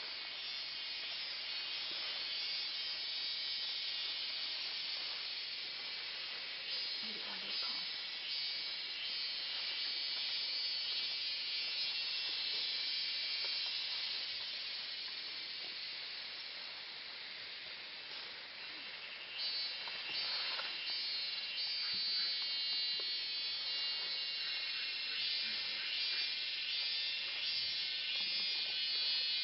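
Steady high-pitched buzzing chorus of forest insects, typical of cicadas, with a few faint rustles and knocks about seven and twenty seconds in.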